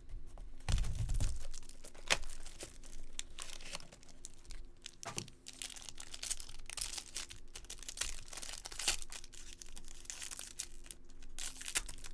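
Packaging of a Topps Chrome baseball card box being torn open: irregular tearing and crinkling of wrappers, with sharp crackles.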